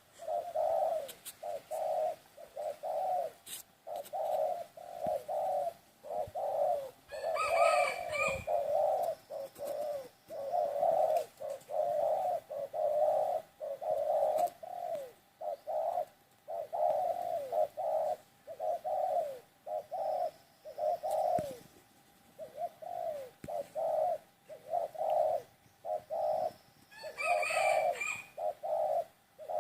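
Doves cooing over and over in short, low, rolling notes, about two a second. Two louder calls reaching much higher in pitch stand out, about eight seconds in and near the end.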